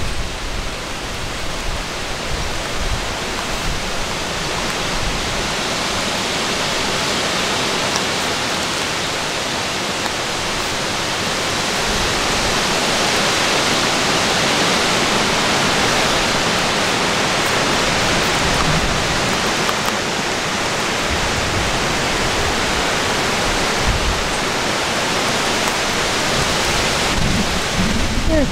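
Wind blowing across the microphone: a steady loud rush of noise with low buffeting gusts now and then.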